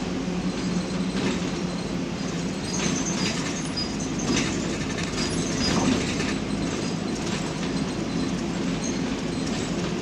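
Moving city bus heard from inside the cabin: steady engine drone and road rumble with rattles, and a few brief high squeals.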